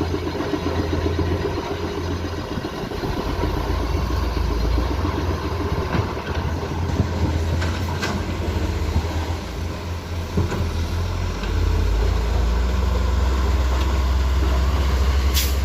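Komatsu PC210 excavator's diesel engine running steadily, then louder and heavier about two-thirds of the way through as it works under load, with a few sharp knocks of rock and steel along the way.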